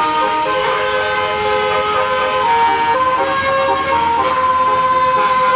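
A bus's basuri musical horn playing a melody: a string of held notes that change pitch about every half second, with the last note held longer, over a second.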